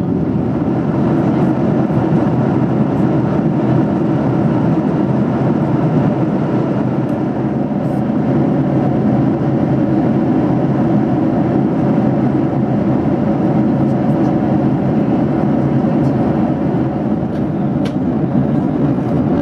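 Steady cabin noise inside a Boeing 737-800 in flight: the low, even roar of its CFM56 turbofan engines and the air rushing past the fuselage, heard from a seat over the wing.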